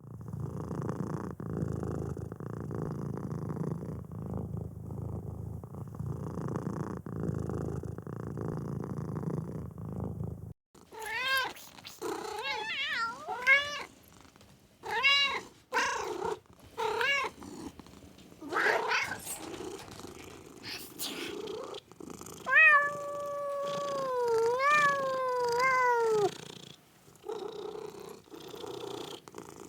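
A cat purring steadily for about ten seconds, in slow waves. Then, after an abrupt cut, comes a run of short, high cat calls, each rising and falling in pitch, and near the end three longer meows that fall in pitch.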